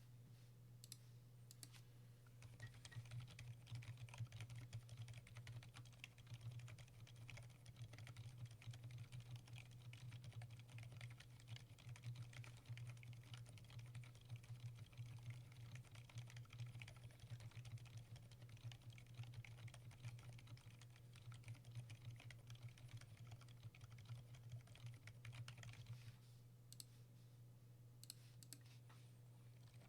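Fast, continuous typing on a Keychron K6 mechanical keyboard with lubed Gazzew Boba U4 silent tactile switches, making quiet, muted keystrokes. A few separate key presses come about a second in and again near the end, and a low steady hum runs underneath.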